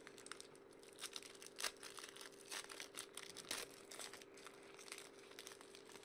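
Foil wrapper of a Panini hockey card pack being torn open and crinkled by hand, a run of crackling bursts with the loudest about a second and a half and three and a half seconds in.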